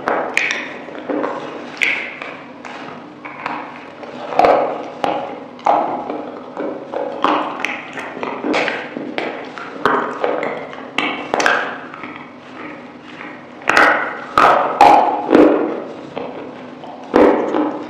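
Close-miked mouth sounds of eating a sauce-coated chicken wing: wet chewing with irregular lip smacks and sticky clicks, loudest in a cluster about two-thirds of the way through.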